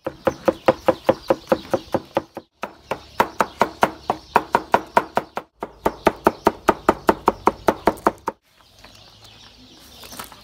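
Large kitchen knife chopping tomatoes on a cutting board in a rapid, even rhythm of about six strikes a second, in three runs with brief breaks. The chopping stops about eight seconds in.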